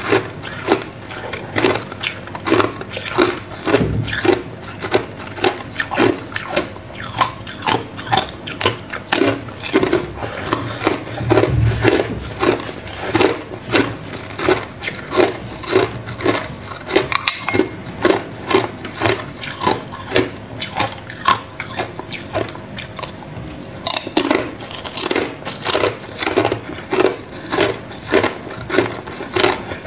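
Clear hard ice being bitten and chewed: a steady run of sharp crunches, about two to three a second, with a short lull about two-thirds of the way through.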